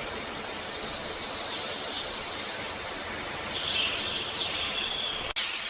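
Steady hiss of outdoor background noise with a few faint, drawn-out high-pitched calls; the sound drops out for an instant near the end.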